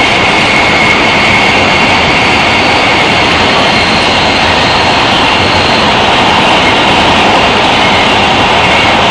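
Heavy-rail subway car running through a tunnel, heard from inside the car: a loud, steady roar of wheels on rail, with faint high steady tones over it.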